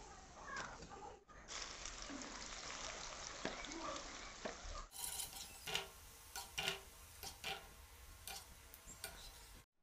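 Sliced okra frying in hot oil in an aluminium pan: a faint, steady sizzle, with a slotted spoon stirring and clicking against the pan several times, more often in the second half.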